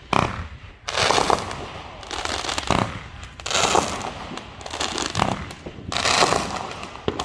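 Consumer fireworks going off in a run of crackling bursts, about one every second, each with a hissing, fizzing tail.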